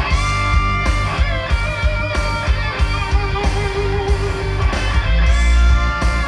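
Music with guitar over heavy bass and a steady beat, played loudly through a PA system of tall double-woofer speaker cabinets and bass bins, as a test of a freshly calibrated amplifier setup.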